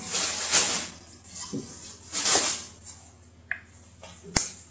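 Small bowl and spoon being handled at a kitchen counter: two short rushing noises, each under a second, and a sharp click near the end.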